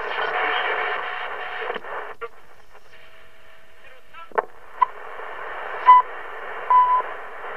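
Realistic DX-160 shortwave receiver being tuned through its speaker: a broadcast station in static for about two seconds, then hiss with a steady carrier whistle and a brief sweep. From about halfway in come short beeps about once a second, the second ticks of the Canadian time station CHU.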